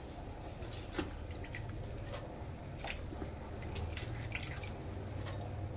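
Cooked dal simmering in an open aluminium pressure cooker: scattered small pops and drips over a low steady hum.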